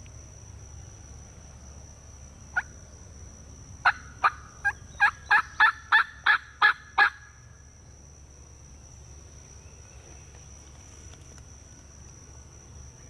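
A single turkey yelp, then a run of about ten loud, sharp yelps at roughly three a second, made on a hunter's turkey call as a strike call to get a gobbler to answer.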